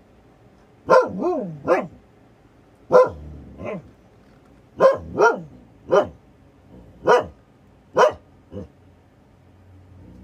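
Siberian husky barking at a plastic bag, about eleven short barks in clusters of two or three, a few of them dropping in pitch, the last one weaker.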